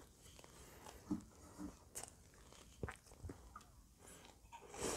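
Close-miked mouth sounds of a person chewing a hot dog with the mouth closed: faint, scattered wet clicks and smacks. Near the end comes a louder, noisier sip from a can of sparkling water.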